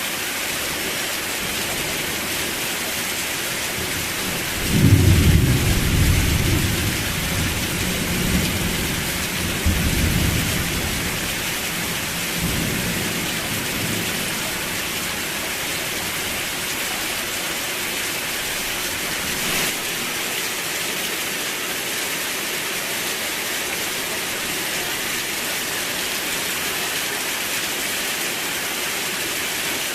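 Steady heavy rain hissing. About four seconds in, a clap of thunder breaks into a low rumble that rolls on in several swells for about ten seconds before fading back under the rain.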